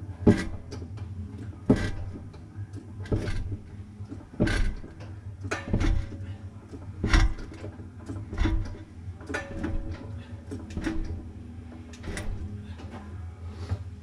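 A jack being pumped to raise the truck's axle: about ten evenly spaced clunks, one roughly every second and a half, over a steady low hum.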